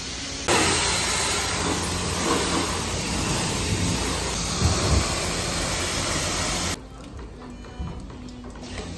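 High-pressure water from a self-service car wash wand spraying a car, a steady loud hiss that starts about half a second in and stops abruptly near the seven-second mark, leaving a quieter wash-bay background.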